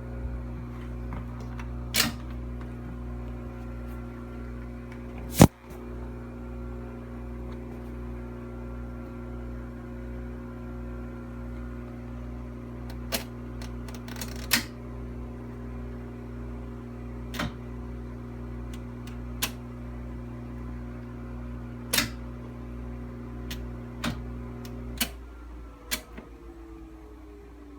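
KitchenAid Hobart KDI-18 dishwasher running its cycle with no water coming in, a steady mechanical hum mixed with an air conditioner's drone, with a sharp click every few seconds. Near the end the hum cuts off and a motor winds down in a falling whine.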